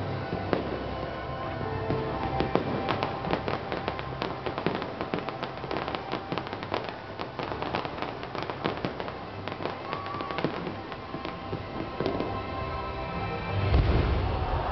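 Fireworks going off in rapid crackles, pops and bangs over show music. A louder, deep booming burst comes near the end.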